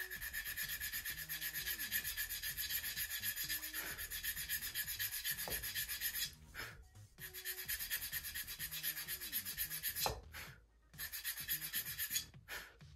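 A small balsa strip being sanded by hand along the sandpaper of an aluminum sanding bar: quick back-and-forth strokes making a dry scratchy hiss. The strokes pause about six seconds in and again near ten seconds, then come back in a few short runs.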